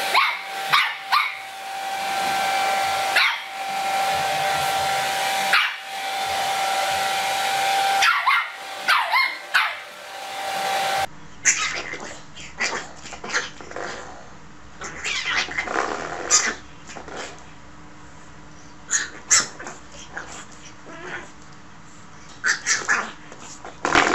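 A hair dryer blowing in runs of a couple of seconds, switched off and on, while a small dog barks at it between the runs. After about eleven seconds this gives way to a quieter stretch of scattered short, sharp sounds as a pug puppy plays at a spring doorstop.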